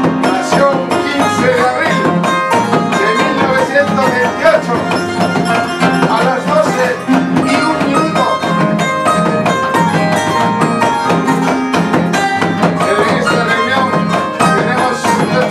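Andean folk music on a large wooden harp and an acoustic guitar, with the harp's soundbox beaten by hand as percussion, playing steadily.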